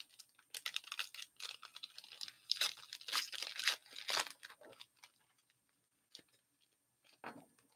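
Foil trading-card pack wrapper being torn open and crinkled by hand, a quick run of rips and crackles that stops about five seconds in, followed by a couple of faint ticks of card handling.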